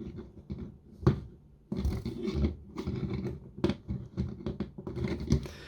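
Plastic LEGO pieces being handled: the legs of a built model clicking and scraping on their ball joints as they are straightened, with a sharp click about a second in.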